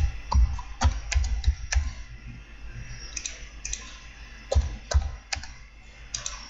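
Irregular clicks and taps of a computer keyboard and mouse as commands are typed and objects are selected. The clicks come in clusters, thickest in the first two seconds and again a few seconds in, some with a dull thud behind them.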